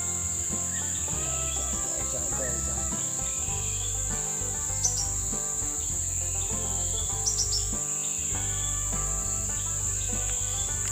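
Steady high-pitched drone of insects, cricket-like, with music underneath and a couple of short bird chirps about five and seven seconds in.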